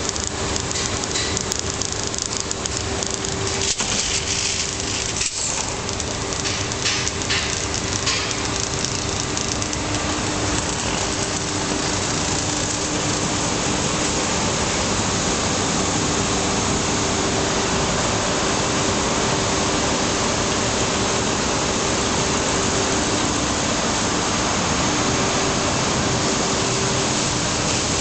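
Colines 200 bubble film sheet extrusion line running: a steady, loud machine noise with a constant hum. Clicks and crackling come through it during the first several seconds.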